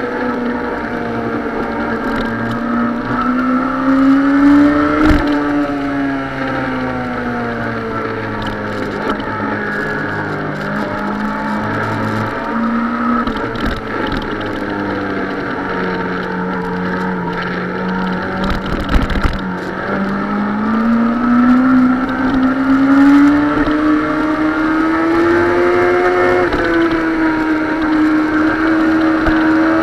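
Suzuki sport bike's engine running under way, its pitch climbing and falling smoothly with the throttle: rising about four seconds in, sinking low around the middle, then climbing again and holding high near the end. Wind rush runs steadily underneath.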